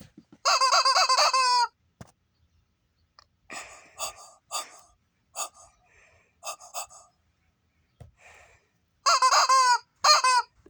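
A chicken calling: two loud, strained, wavering squawks of about a second each, one near the start and one near the end, with shorter, softer calls in between.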